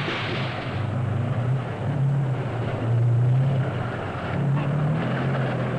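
Tank's diesel engine running in a low, steady drone, its pitch rising and falling as it revs.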